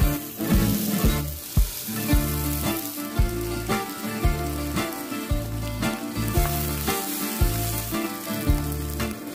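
Hot cooking oil sizzling in a frying pan as food fries, under background music with a steady beat.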